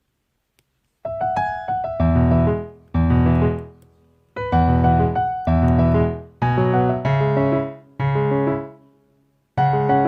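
Background piano music: a series of chords, each struck and left to die away.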